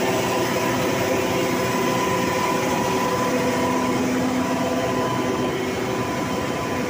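Sugar-mill machinery running, a spinning vertical-shaft sugar centrifugal the nearest: a steady, even machine hum with a few held tones and no change in level.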